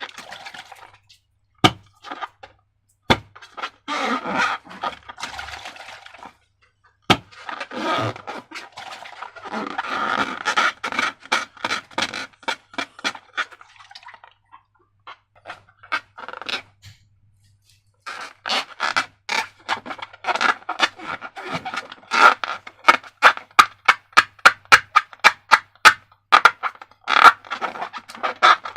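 Slime being worked by hand: sticky wet clicks, crackles and squelches in uneven patches. A pause falls about halfway through, then comes a long run of quick clicks, about three a second.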